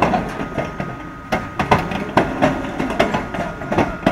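Large crawler excavators working: irregular metallic clanks and knocks over a steady high whine and low machinery rumble.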